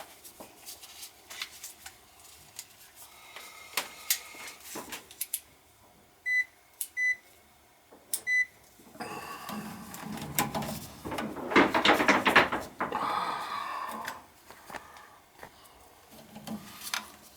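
Clicks and knocks of parts and tools being handled, then three short, high electronic beeps in quick succession, followed by a louder stretch of clattering and rumbling.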